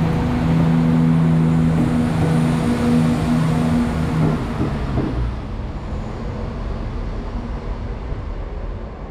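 West Midlands Railway Class 172 diesel multiple unit moving past along the platform: its underfloor diesel engines run with a steady low note that drops away about four seconds in, leaving the rumble of the wheels on the track.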